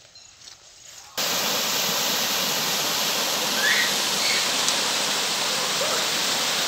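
Water pouring over a small stone dam's weir and rushing down a rocky stream bed: a steady, loud rushing that starts abruptly about a second in, after a quiet moment.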